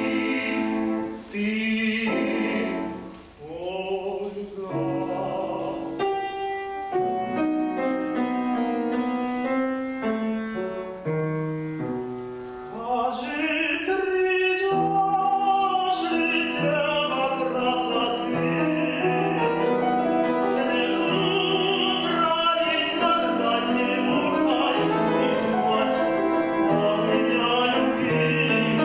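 A male classical singer sings in full operatic voice with wide vibrato, accompanied by piano. There is a short breath-pause about three seconds in.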